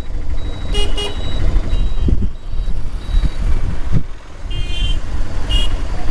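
Riding in a three-wheeled auto-rickshaw: a steady rumble of the moving vehicle and road, with short horn toots about a second in and twice near the end.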